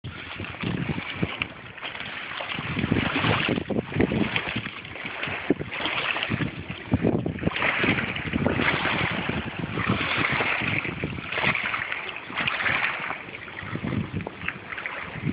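Wind buffeting the microphone over water sloshing against a brick-rubble bank, coming in uneven swells, with scattered knocks of handling noise.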